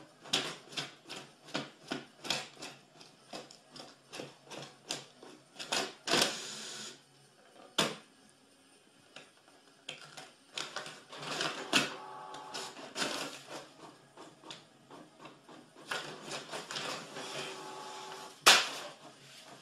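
Inkjet printer printing a page. The print head shuttles back and forth in quick, evenly spaced strokes, with a short pause about halfway. Then come whirring paper-feed runs and one loud clack near the end.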